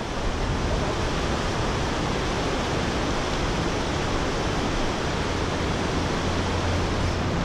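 Fast river water rushing and churning over a low weir: a steady, unbroken rush of white water.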